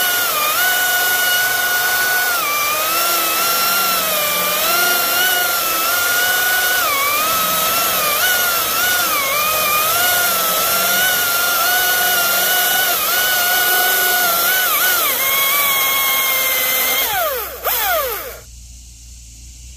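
Husqvarna 540i XP battery top-handle chainsaw, out of economy mode, cutting through a large round of hard old pine: a steady electric motor whine that dips in pitch again and again as the chain loads up in the wood. Near the end it winds down and stops.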